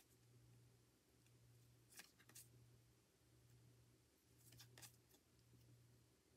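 Near silence: a few faint soft clicks of stiff photocards being shuffled and handled, over a faint low hum.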